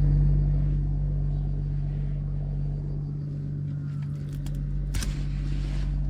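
Toyota HiAce van running, a steady low engine drone, with a few light clicks and a brief hiss about five seconds in.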